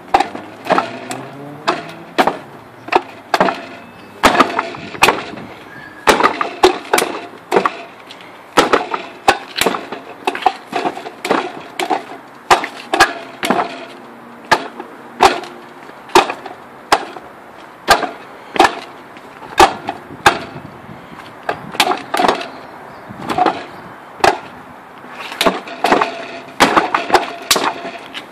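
Hands and forearms striking the wooden arms and trunk of a Wing Chun wooden dummy: loud, sharp wooden knocks and clacks coming several a second, in quick irregular runs.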